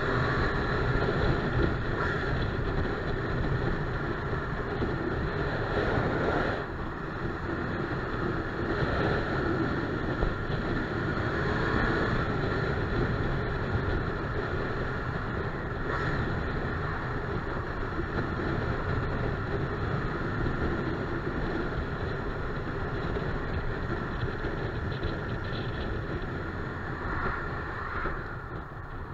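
Triumph Street Triple RS 765 three-cylinder motorcycle ridden at a steady cruise of around 50 mph, engine running under wind rush over the camera. Near the end the sound drops as the bike slows.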